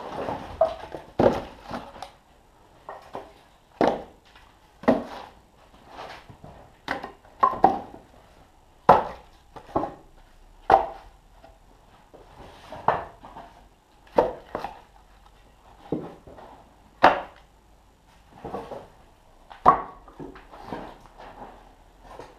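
Split birch firewood pieces being set down and knocked against one another as they are stacked by hand, a run of irregular hollow wooden clunks at roughly one a second.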